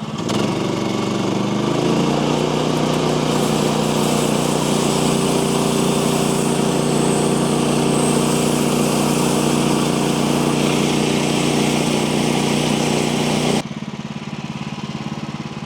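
Manual bandsaw mill's engine revved up from idle to full speed, with the blade sawing through an eastern red cedar log and a steady hiss over the engine's running. It drops back to idle suddenly about 13½ seconds in.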